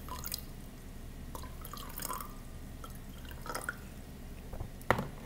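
Hot water being added to brown sugar in a cup, heard as scattered faint drips and small ticks rather than a steady pour, with a sharper knock just before the end.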